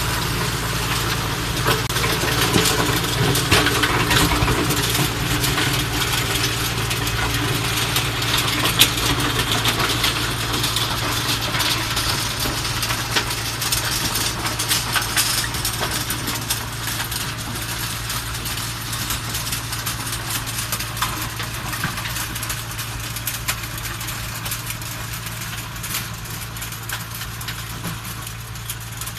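Tractor engine running steadily under load while it drives a TSR 210 stone burier, with a dense, irregular clatter of stones and clods hitting the machine's rotor and metal frame. The sound slowly fades as the tractor moves away.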